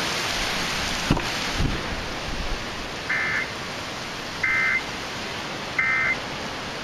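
Heavy rain falling on a truck's roof and windows, a steady hiss, with a couple of light knocks a second or so in. In the second half, three short electronic data bursts from the truck radio, evenly spaced about a second apart: the Emergency Alert System's end-of-message tones closing a severe thunderstorm warning.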